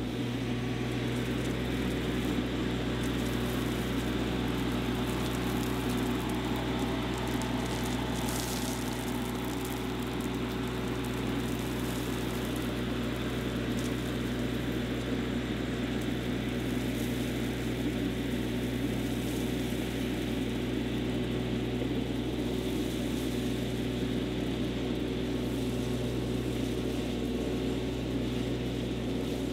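Compact diesel tractor's engine running steadily as it drives with a front-loader bucket full of gravel.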